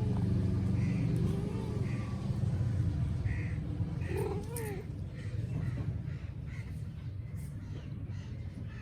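Mother cat meowing to call her kitten: a few short meows that rise and fall in pitch, the clearest about four seconds in, over a steady low rumble.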